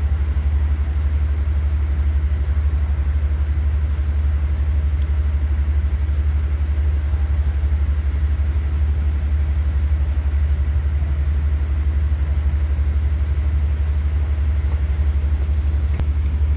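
A stationary diesel passenger train running at idle: a steady, unchanging low drone, with a thin steady high tone above it.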